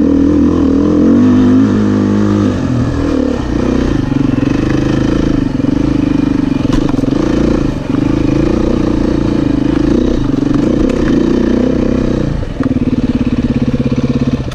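Beta 500 RR-S dirt bike's single-cylinder four-stroke engine running under changing throttle, its revs rising and falling. About twelve and a half seconds in, it settles into a steady, evenly pulsing idle.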